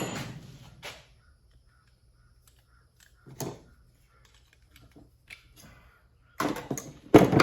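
Small metal scrap pieces clinking and clattering as they are handled and set down on a hard surface. A sharp clank at the start and a single knock about three and a half seconds in, then a run of clatter ending in a loud clank near the end.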